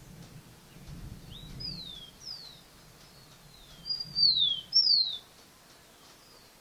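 A bird calling: a series of clear whistled notes, each sliding down in pitch. The two loudest come about four to five seconds in.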